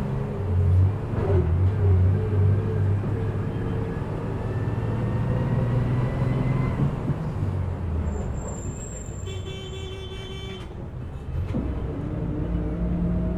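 Passenger bus riding, heard from on board: the engine drone eases off as the bus slows. A horn then sounds once for just over a second. The engine note climbs again near the end as the bus pulls away.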